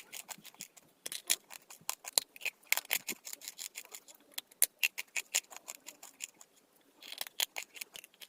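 Close-miked crunching of dry chalk clay: a dense, irregular run of sharp crackling clicks that thins out briefly before picking up again near the end.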